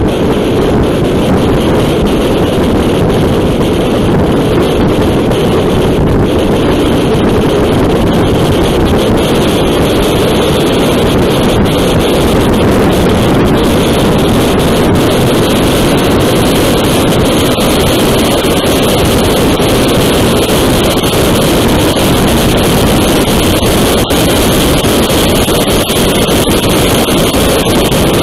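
Steady wind noise rushing over the microphone, with a motorcycle's engine running underneath: a Yamaha MT-09 Tracer's three-cylinder engine pulling in sixth gear at highway speed.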